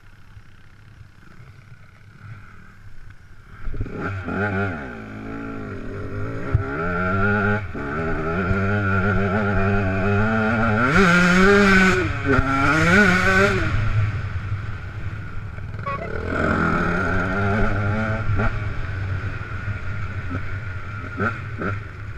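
Two-stroke KTM 150 XC enduro bike's engine. After a quiet first few seconds it comes up about four seconds in and revs up and down as the bike rides across rough ground. It is loudest around the middle, with a rush of wind noise, then eases and picks up again.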